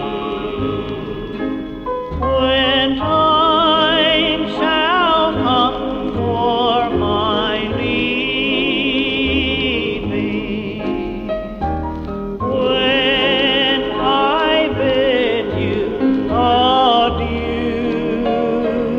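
Recorded gospel song: a lead voice sings with a wide vibrato over a choir, with a steady bass line underneath.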